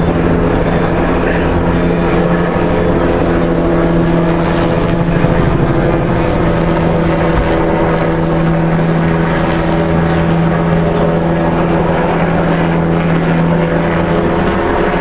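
Steady mechanical drone with a constant low hum, like an engine running without change.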